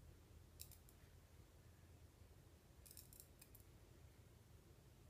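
Faint small clicks of metal forceps tips closing on a flower while its sepals are plucked off: a couple about half a second in and a quick cluster of several around three seconds in, over a low steady room hum.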